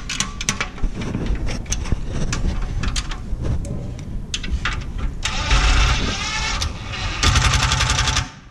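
Cordless impact driver running a bolt into an aluminium sawhorse hinge in two bursts of about a second each, about five and seven seconds in, rattling rapidly. Before them, irregular clicks and knocks of a hand wrench and metal parts on the aluminium frame.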